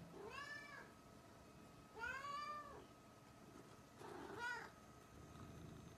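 Domestic cat meowing three times, about two seconds apart, each meow rising then falling in pitch; the cat is hungry and asking for food.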